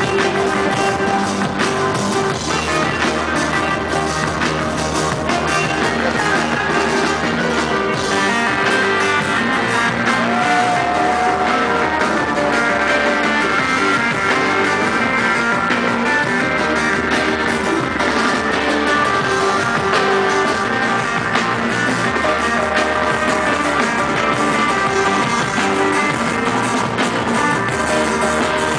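Live rock band playing a continuous jam with guitars and a drum kit, heard in the hall from the audience.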